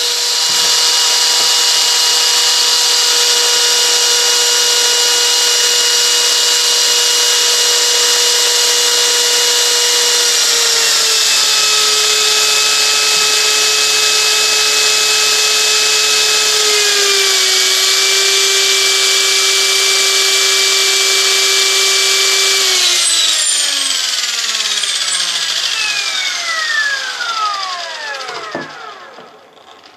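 Align T-Rex 500 EFL electric RC helicopter running with a loud, steady whine from its drivetrain and torque tube, the noise the owner asks about as possibly abnormal. The pitch steps down slightly twice, then from a little over twenty seconds in the rotor head spools down, the whine falling in pitch and fading out.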